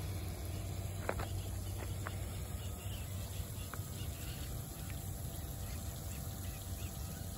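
A thin stream of ballast water pumped out of an amphibious aircraft's hull by its bilge pump, trickling and splashing into a puddle on the ground, over a steady low hum and faint outdoor ambience.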